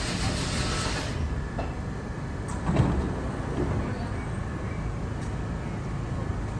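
Deep underground subway station rumble from trains on the line, a steady low roar. A hiss fades out about a second in, and a single knock comes near the middle.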